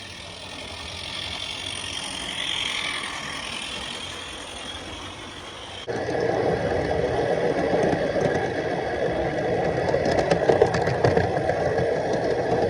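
Live steam Regner Lumberjack model locomotive running on garden track: steam hissing at first, then from about six seconds in a louder, steady rattling clatter of the running gear and wheels.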